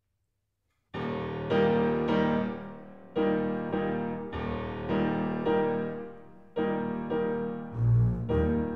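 Classical chamber music begins about a second in: a piano plays a series of chords in a steady rhythm, each ringing and fading before the next. Deep bass notes enter near the end.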